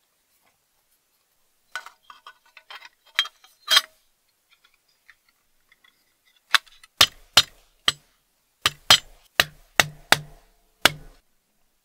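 Sheet-metal parts of a vintage Louxor Supra bicycle lantern clinking lightly as they are fitted together during reassembly, then a run of about ten sharp metallic taps, roughly two a second, as a tool works inside the lantern body.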